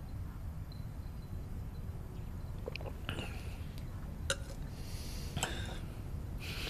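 A steady low hum of room tone. About halfway in, a handful of faint, short clicks and soft hissy rustles start, scattered a second or so apart.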